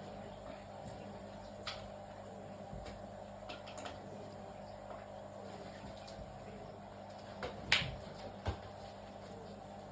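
A few short, sharp clicks and taps over a faint steady hum, the loudest pair about three-quarters of the way through.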